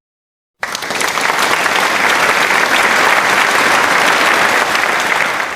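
Applause sound effect: a crowd clapping steadily, starting about half a second in and cutting off abruptly at the end.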